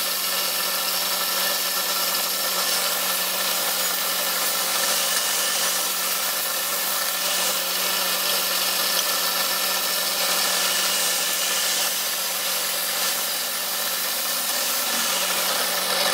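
Bench pillar drill running steadily with a constant motor hum, used to drill a small hole in a brass model steam-engine frame.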